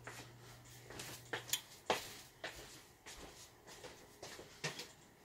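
Faint, scattered knocks and clicks of someone moving about a kitchen to fetch a bowl, a few sharper taps among them.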